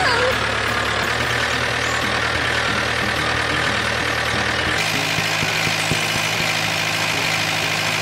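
Diesel tractor engine sound effect running steadily, its low note changing about five seconds in.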